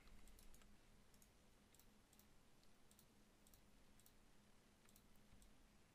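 Near silence: faint, irregular computer mouse clicks over a faint steady hum.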